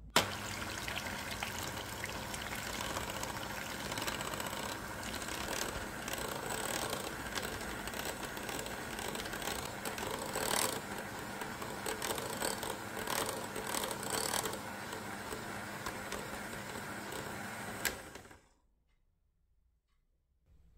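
Electric hand mixer running steadily, its twin beaters whipping a thick chocolate, mascarpone and cream mixture in a glass bowl. It is switched on with a click at the start and cuts off with a click near the end.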